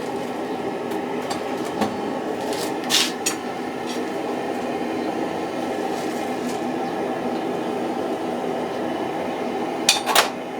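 Gas forge burner running with a steady roar, with a few sharp metallic clinks of steel and tongs being handled, a pair about three seconds in and a quick cluster near the end.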